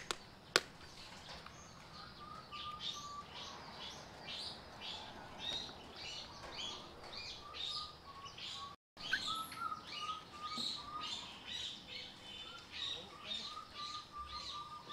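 Small birds chirping over and over, a few short high chirps a second, over a faint steady trill. Two sharp clicks in the first second, and the sound drops out for a moment about nine seconds in.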